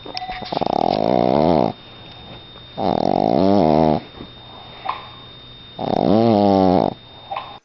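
Dog snoring in its sleep: three long, loud snores about two and a half seconds apart, each with a pitched squeal that wavers up and down.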